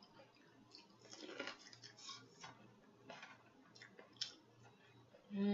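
Person chewing fried corn close to the microphone, with faint, irregular mouth clicks and smacks, a few each second.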